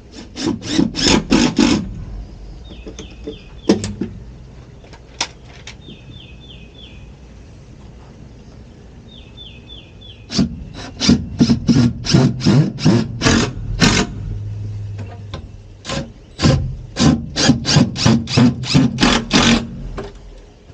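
Quick runs of hammer blows on pressure-treated lumber, about five knocks a second, in three bursts, as floor joists are knocked into place. In the pauses a small bird gives three short four-note chirps.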